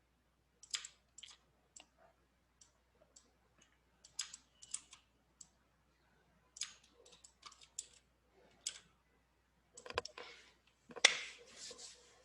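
Irregular clicking of a computer mouse and keyboard, a dozen or so separate clicks, with one louder knock near the end.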